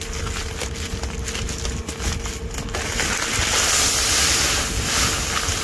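Rustling and clicking as a bulk bag's spout tie is worked loose, then about three seconds in a steady hiss of granular inoculant pouring from the bag through the screen into the seeding tank. Wind buffets the microphone throughout.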